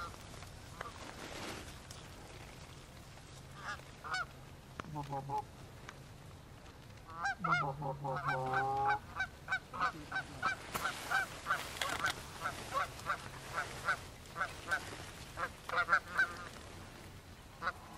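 Canada geese honking: a few scattered honks, then a steady run of short honks about two a second through the second half.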